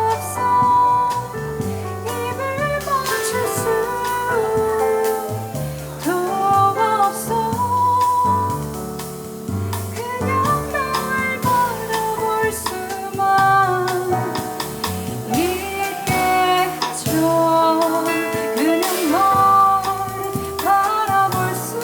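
Live jazz band music with piano, double bass and drums, a stepping bass line under a gliding melody line.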